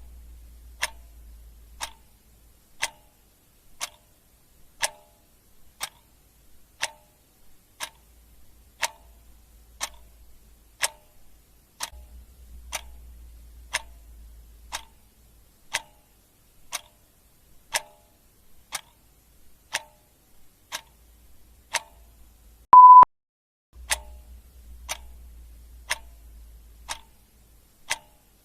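Clock ticking steadily, about one tick a second. A single short, high beep sounds about three-quarters of the way through and is louder than the ticks.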